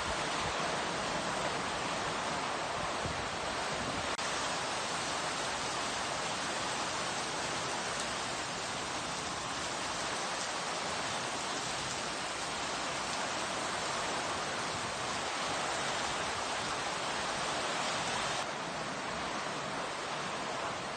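Heavy typhoon rain and wind, a steady rushing hiss that eases slightly near the end.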